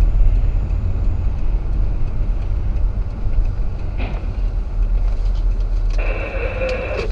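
Steady low road and engine rumble inside a moving car's cabin. About six seconds in, a harsher, higher noise joins for about a second.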